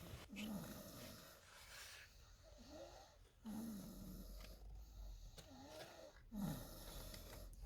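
A baby girl snoring in her sleep: about five squeaky, wavering snores as she breathes in and out, some falling in pitch and some rising.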